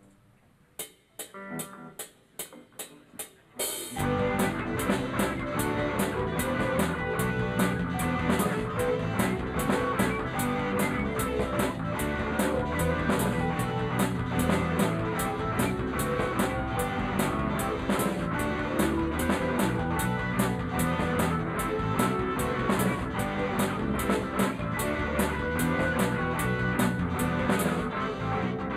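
Live rock band starting a song: a few sharp clicks over the first few seconds, then drum kit, electric guitars and bass come in together about four seconds in and play an instrumental intro with a steady beat.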